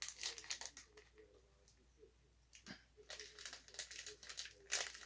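Crinkling and rustling of a polvorón shortbread's wrapper being handled, with a quiet pause in the middle and a louder crinkle near the end.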